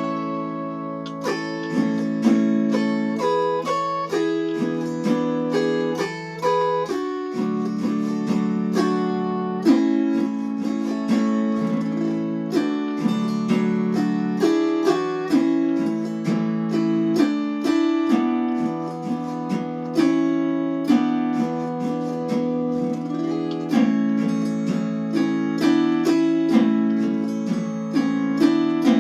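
Chromaharp, an autoharp-style chorded zither, playing a hymn tune: a plucked melody over strummed chords, with the notes ringing on into one another.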